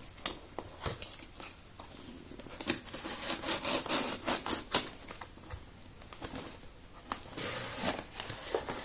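A cardboard box being opened by hand: tape and flaps pulled and packing paper rustling and crinkling, in irregular bursts of crackle and clicks, busiest about three to four seconds in and again near the end.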